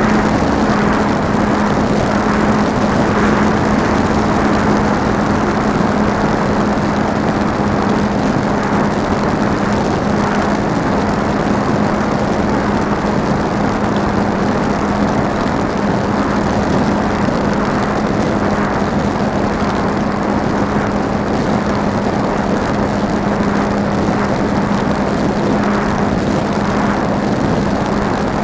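Small electric motor and propeller of an RC airplane heard from on board, running at a steady throttle with a constant hum. Wind rushes over the camera's microphone.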